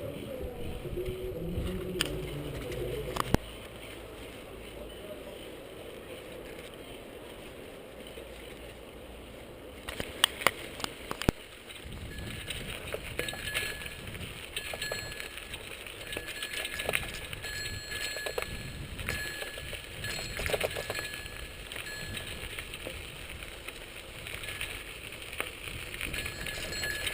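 Bicycle riding over a dirt track: tyre noise with rattles and clicks, and from about halfway an on-and-off high squeak.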